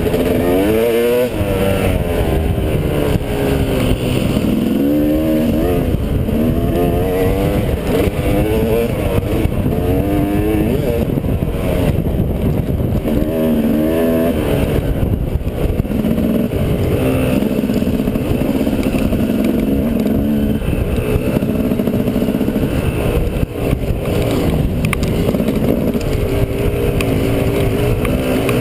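Dirt bike engine heard from the rider's helmet camera, revving up and falling back over and over as the throttle is worked along a rough trail, with a few seconds of steady running a little past the middle.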